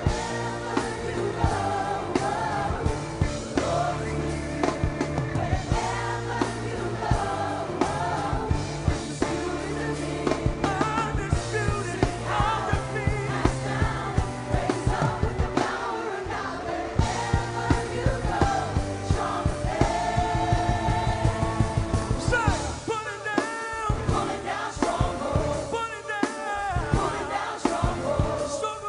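Live gospel band performance: singers with a choir-like vocal sound over bass and drum kit. About 22 seconds in, the bass drops out, leaving sliding vocal lines over the drums.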